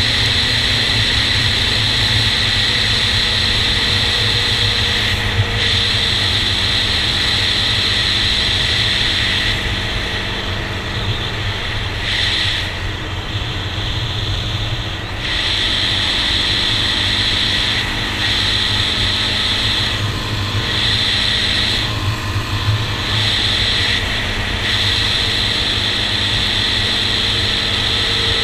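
Honda TRX400EX quad's single-cylinder four-stroke engine running under way, with wind and gravel-road noise over a helmet-mounted camera. The sound drops off for a few seconds about halfway through, then picks back up.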